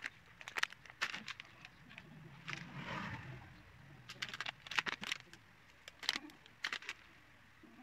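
Dry pet treats and their plastic packaging being handled: a series of short sharp clicks and crinkles as crisp treats are set down on a plate, with a brief rustle about three seconds in.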